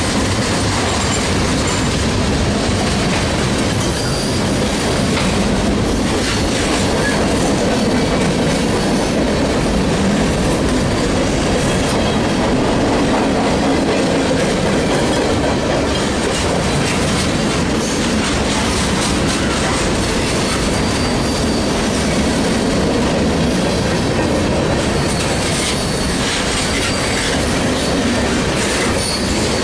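Freight train cars (tank cars and boxcars) rolling past at speed: a steady loud rumble of steel wheels on rail with fast, irregular clicking over the rail joints and a faint, intermittent high wheel squeal.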